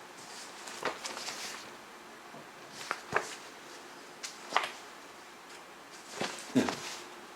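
Magazine pages being handled and turned, paper rustling in four short bursts a second or two apart.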